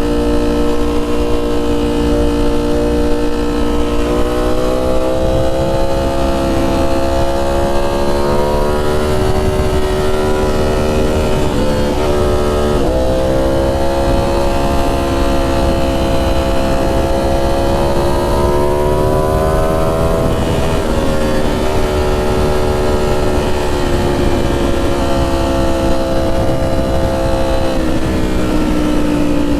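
Ducati Streetfighter V4 S's V4 engine through an SC Project titanium 2-1-2 exhaust, under way at moderate throttle. The exhaust note holds steady, climbs gradually, dips sharply about twelve seconds in, swells again, then falls away near the end.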